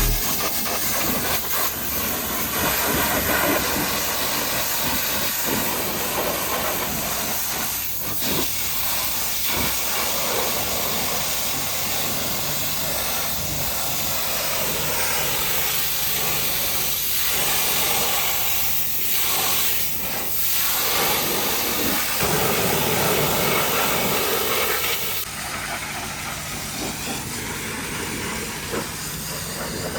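High-pressure washer jet spraying against the truck: a loud, steady hiss that shifts in tone as the spray moves, turning a little quieter and duller about 25 seconds in.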